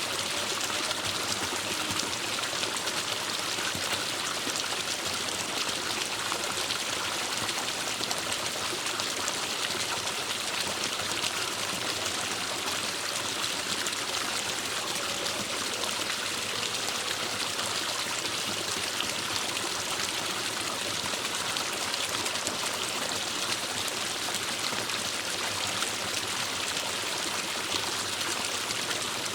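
Forest stream flowing steadily over rocks, an even rushing and trickling of water.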